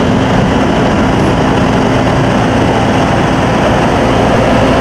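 Diesel engine of a Manitou telehandler running steadily as it drives slowly past, with one steady droning note over a constant rumble.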